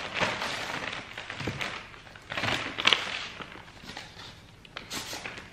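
Plastic poly mailer crinkling and newspaper wrapping rustling as a package is unwrapped by hand, in several irregular bursts with sharp crackles, loudest about three seconds in.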